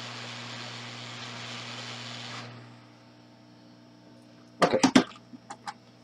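Hot air rework station blowing steadily on a phone logic board while a BGA chip is desoldered, then shutting off about two and a half seconds in. About two seconds later comes a quick clatter of sharp metal clicks, followed by a couple of lighter ticks.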